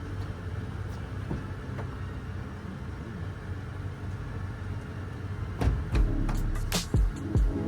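Low steady hum of a truck running. About two-thirds of the way in, a beat with deep bass kicks and sharp snare-like hits comes in.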